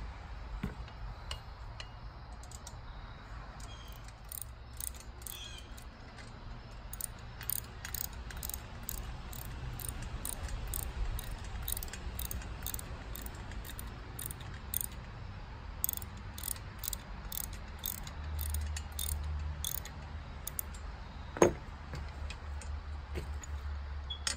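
Light metallic clicking and clinking of a hand tool and hardware as a bolt is tightened through the steel pieces of a Metalcloak compressor-mount bracket, with one sharper metal knock about 21 seconds in.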